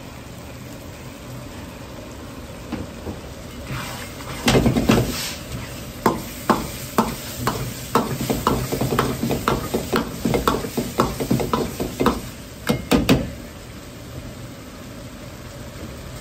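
A ladle stirring meat sauce simmering in a wok, knocking and scraping against the pan about twice a second from about four seconds in until about thirteen seconds, over a steady background noise.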